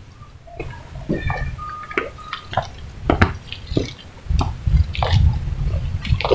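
Footsteps on a dirt trail, a short crunch or tap about every half second to second, over a low rumble on the microphone that grows stronger from about four seconds in.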